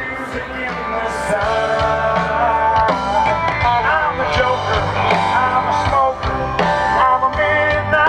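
Amplified live band music from an outdoor festival stage: rock-style, with guitar, heard across an open field. It grows louder over the first second or two.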